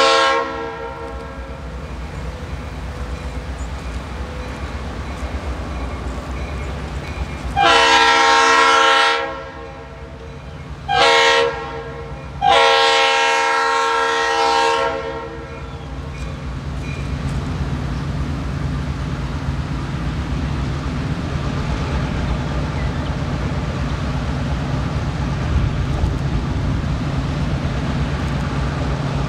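Lead EMD GP38-2 diesel locomotive's air horn sounding the grade-crossing signal. The tail of one long blast ends about a second in, followed by a long blast, a short blast and a final long blast. Under it the locomotives' diesel engines run steadily, growing louder near the end as the train approaches.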